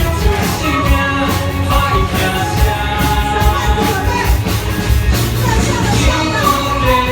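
Orchestra playing a popular song with a steady beat, a voice singing the melody over it.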